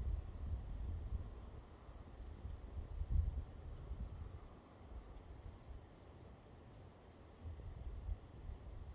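Low rumbles of distant thunder, swelling about three seconds in and again near the end, under a steady high insect chirring.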